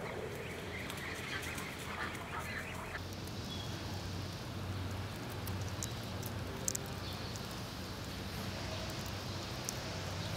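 Greater flamingos calling with goose-like honks, most densely in the first few seconds and sparser after, over a steady low hum.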